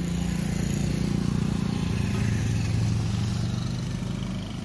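Motorcycle engine passing close by on the road, growing louder to a peak in the middle and then fading.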